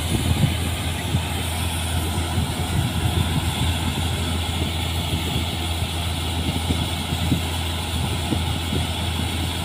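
New Holland TC56 combine harvester's diesel engine running steadily at working speed while its unloading auger pours sunflower seed onto a tarp.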